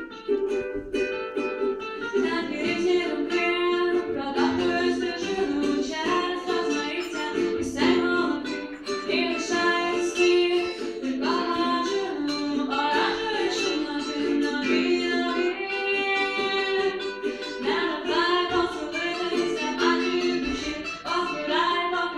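A ukulele played along with a second small plucked-string instrument, with a voice singing over them from about two seconds in.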